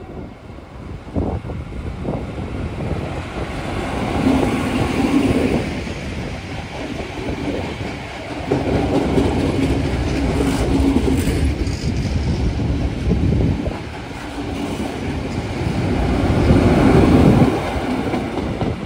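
An XPT diesel train passing close by: the noise swells as the leading power car comes past a few seconds in, a long run of carriage wheels rumbles along the track, and the rear power car goes by loudest near the end.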